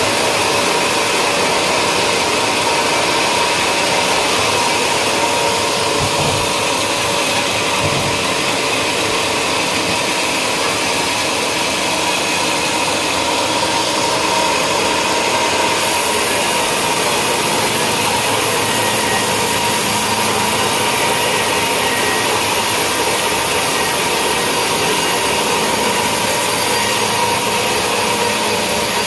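Sawmill running steadily, a continuous loud mechanical whine with a couple of faint knocks, as it works through wadang timber.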